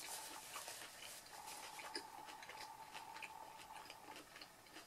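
Close-miked chewing of a grilled veggie wrap: a scatter of faint, soft wet clicks from the mouth.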